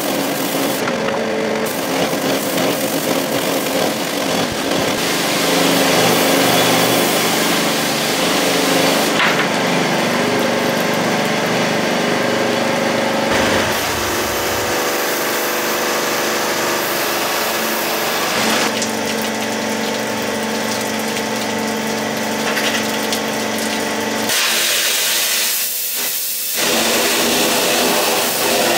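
An engine-driven high-pressure washer running steadily, its engine and pump humming under the hiss of the water jet. The tone of the machine changes abruptly several times.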